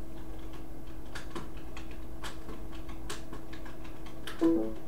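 Irregular faint clicks and ticks over a steady low hum, then a brief pitched tone near the end, the loudest sound.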